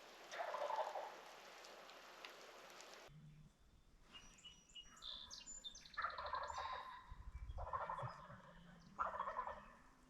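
Wild turkeys gobbling: one gobble about half a second in over a steady hiss, then, after an abrupt change of background, small birds chirping and three gobbles in quick succession in the second half.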